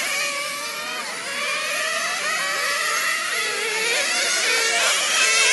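Several 1/10-scale nitro touring cars' small two-stroke glow engines whining, their pitch sliding up and down as they rev and ease off around the track.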